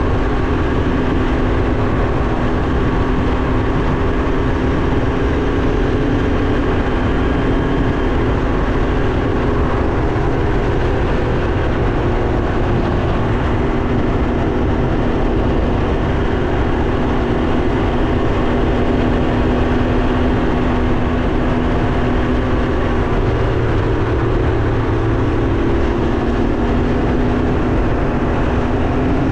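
Can-Am Ryker 900's three-cylinder engine running at a steady cruise, with constant wind and road noise over it.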